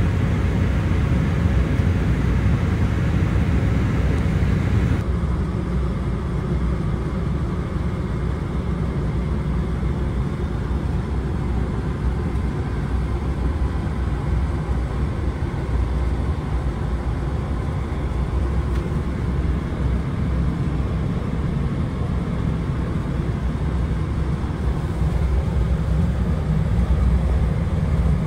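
Steady in-flight cabin noise of a Boeing 777-300ER airliner: a deep rumble of engines and airflow with a hiss on top. About five seconds in, the hiss drops away and the rumble turns duller, as heard inside the aircraft's lavatory.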